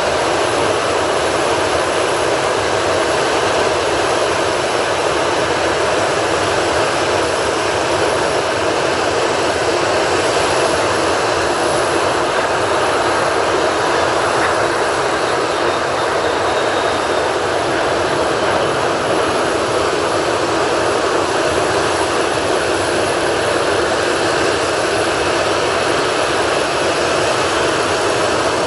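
Boeing 737-800's CFM56 jet engines running at low power as the airliner rolls slowly on the wet runway: a steady, even jet roar that neither rises nor falls.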